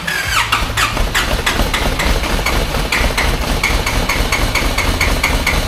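Nissan ZD30 four-cylinder turbo-diesel running just after starting: a steady low rumble with sharp, even knocking at about four a second. The engine has cracked, holed pistons and is pushing smoke out of its breathers.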